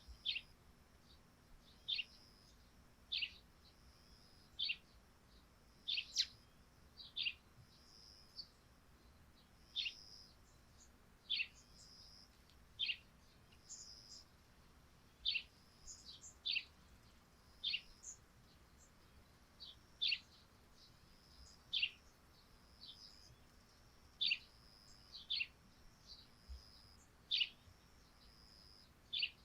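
Eurasian tree sparrows chirping: single short, sharp, falling chirps, roughly one every second or so, over a faint steady high tone.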